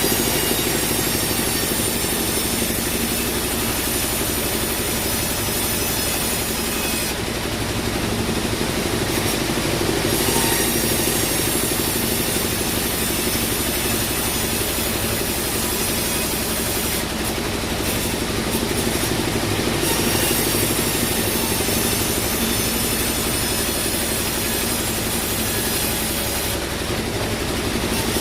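Bandsaw sawmill running steadily, its blade sawing through a teak log, with a constant machine hum under the cutting noise.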